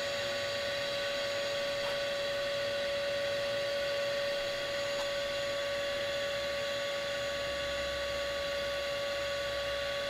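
A steady, unchanging electric hum at one pitch, with higher overtones.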